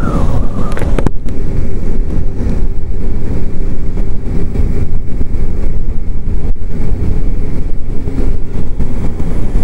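Wind rushing and buffeting over a helmet-mounted microphone, with road noise, while riding a Zero DSR electric motorcycle at road speed. There is no engine note. A high whine falls and fades out in the first second.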